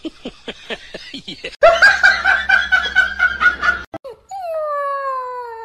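A husky-type puppy howling: one long call that starts about four seconds in, sliding slowly down in pitch. Before it, over the cat clip, comes laughter in quick short bursts, then a loud, harsh sound lasting about two seconds.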